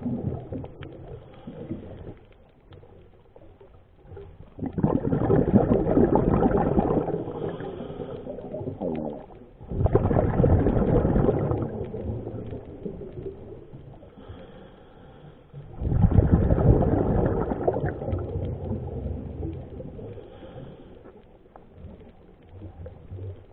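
Scuba diver's breathing heard underwater: three bursts of exhaled bubbles from the regulator, about six seconds apart, each swelling suddenly and then fading.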